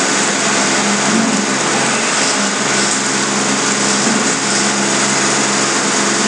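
Steady mechanical hum made of several even tones, with a loud hiss over it.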